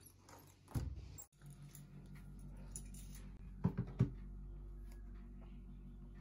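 Handling noises: a dull knock about a second in, then three quick sharp clicks or knocks about four seconds in, over a steady low hum.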